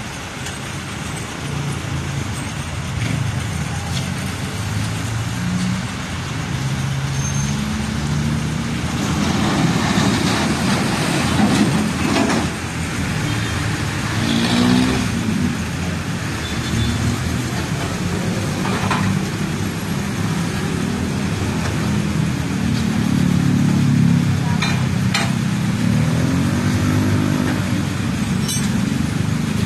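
Street traffic with vehicle engines running and passing, and a few sharp metallic clanks while a jeepney is chained to a flatbed tow truck.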